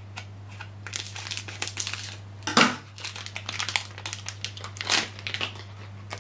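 Sealed plastic wrapper of an ink cartridge crinkled and pulled open by hand: irregular crackling, with louder bursts about two and a half and five seconds in.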